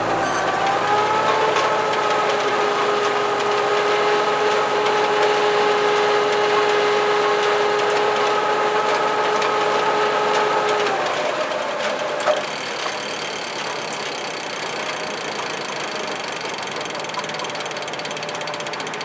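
Tractor engine running with haybine machinery, picked up by a camera clamped to the vibrating equipment, with a steady whine over it. The whine stops about eleven seconds in, leaving a rougher mechanical running with one sharp click a second later.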